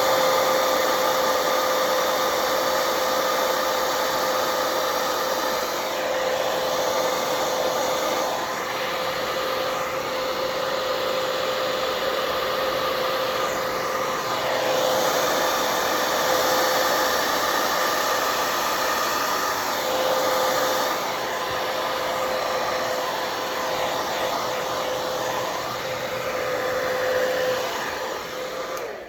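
Handheld blow dryer running steadily with a constant hum and airy hiss, its loudness shifting a little as it is moved, blowing fluid acrylic paint across a canvas; it switches off near the end.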